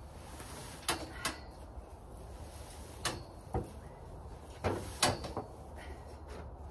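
Metal hay ring feeder clanking as it is lifted and tipped up on its side: several sharp knocks of its steel bars over a few seconds.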